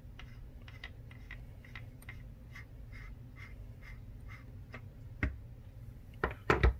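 Air cylinder of a Pardini K12 air pistol being screwed on by hand: a run of faint, quick ticks, about three a second, then a few louder knocks near the end.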